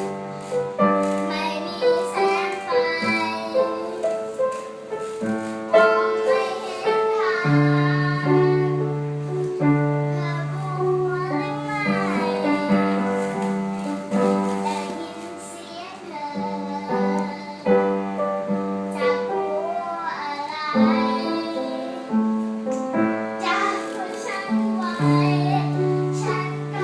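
A child singing a song over instrumental accompaniment with sustained keyboard chords and a steady bass line.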